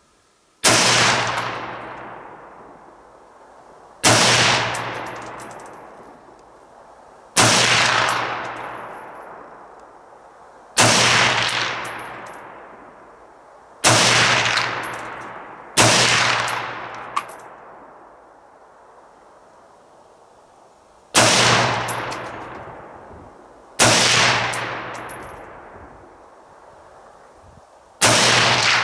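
Colt Combat Unit Carbine, a 5.56 mm AR-15-type rifle, fired in nine single aimed shots spaced two to five seconds apart. Each sharp report trails off in a long echo lasting a second or two.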